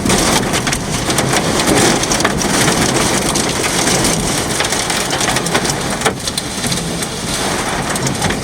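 Heavy rain pelting down, a dense steady hiss full of sharp drop impacts.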